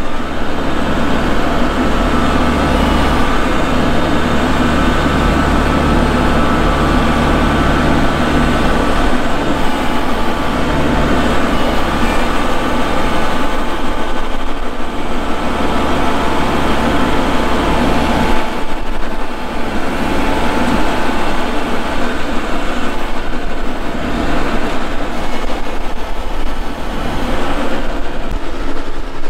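Kubota MX5200 tractor's diesel engine running steadily as the tractor drives with its front loader raised. The engine note eases off briefly about two-thirds of the way through.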